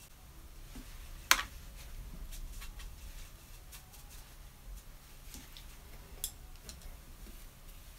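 Small sounds of watercolour brushwork at a desk: faint scattered ticks, with one sharp click about a second in and a smaller one near six seconds, over a low steady hum.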